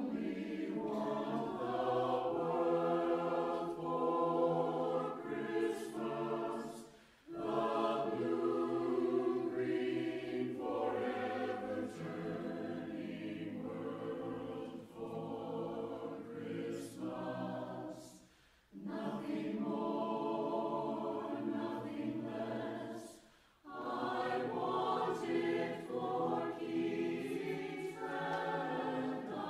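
Mixed a cappella choir of men's and women's voices singing in parts, with short breaks between phrases about 7, 18 and 23 seconds in.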